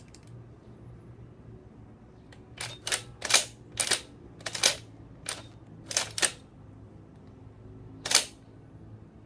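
Benelli M2 SP semi-automatic shotgun's action worked by hand at the charging handle: a quick run of sharp metal clacks for about four seconds, then one more loud clack near the end.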